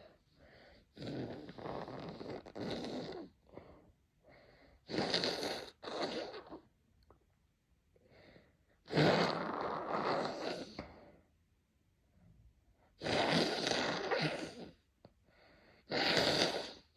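A person sneezing and blowing their nose: five loud, noisy bursts a few seconds apart, each starting sharply, with quieter breaths between them.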